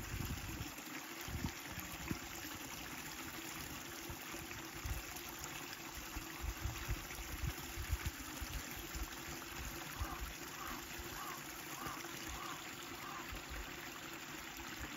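A steady rushing of flowing water, like a small stream, with irregular low thumps. About ten seconds in, a short run of six faint chirps comes at roughly two a second.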